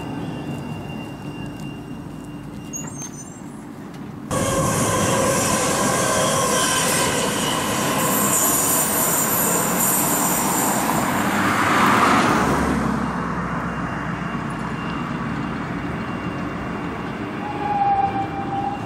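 Rail traffic running, with high wheel squeal for several seconds, and a car passing close by about twelve seconds in. The noise jumps suddenly louder about four seconds in.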